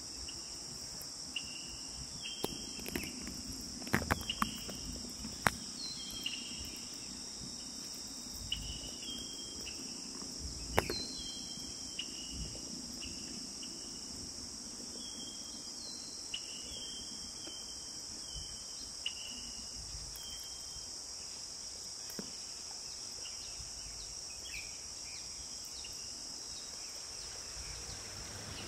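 A steady high-pitched drone of crickets or other insects, with short chirping notes repeating over it and a few sharp clicks, most of them about four to six seconds in and near eleven seconds.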